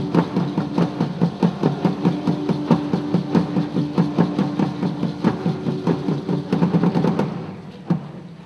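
Rapid drumming, several strikes a second, over steady droning tones from conch shells being blown. About seven seconds in the drumming stops, leaving a couple of single strikes.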